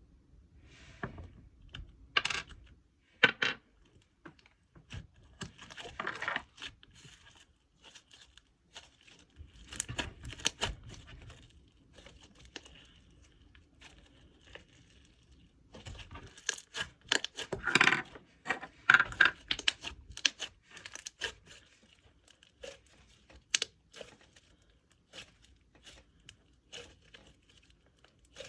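Glossy slime being kneaded and stretched by hand with clay slime mixed in, making irregular sticky crackles and small popping clicks, busiest near the start and again about two-thirds of the way through.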